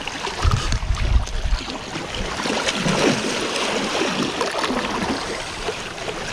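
Sea water washing and sloshing around shore rocks, with a low rumble of wind on the microphone in the first second or so.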